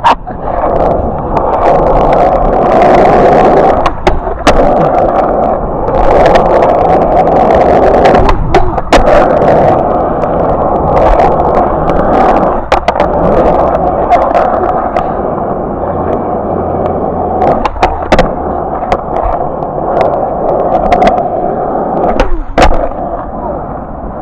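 A skateboard rolling on a skatepark surface: a steady, gritty rumble of the wheels, broken by sharp clacks and knocks of the board and brief pauses about 4, 8, 12 and 22 seconds in.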